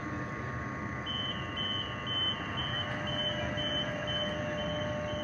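Door warning beeps from a Sydney Trains double-deck electric train at the platform: a steady series of short high beeps, about two a second, starting about a second in, signalling that the doors are about to close. Under them runs the steady electrical hum of the standing train.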